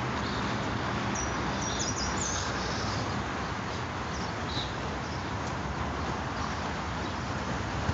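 Steady outdoor background noise, with a few short, high bird chirps between about one and two and a half seconds in and another near the middle.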